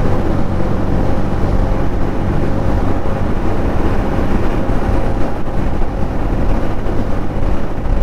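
Motorcycle engine running steadily at road speed, with wind rushing over the rider's camera microphone.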